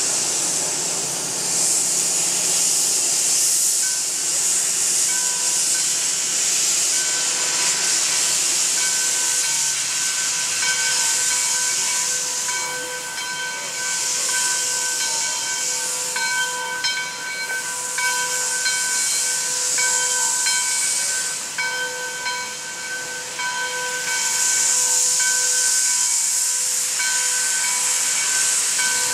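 Steam locomotive venting steam: a loud hiss that swells and fades every few seconds. About four seconds in, a fainter whistling tone starts and comes and goes.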